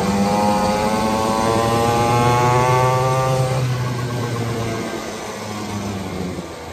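X-Pro 50cc two-stroke mini pit bike engine revving up under throttle, its pitch climbing for about three and a half seconds. Then the throttle comes off and it falls back to a lower, quieter running note.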